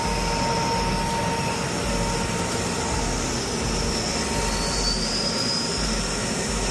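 Oil-fired boiler burner running on No. 2 oil with a steady roar of combustion, and a thin high screech that shifts in pitch about four and a half seconds in. The screech is the sign of the burner going into low fire as its combustion air is cut down.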